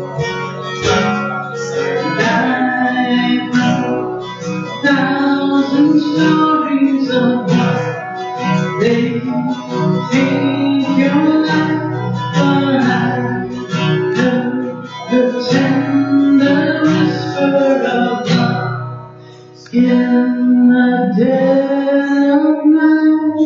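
Live worship music: a strummed acoustic guitar with a voice singing a melody over it. About four-fifths of the way through, the music drops away for about a second, then starts again.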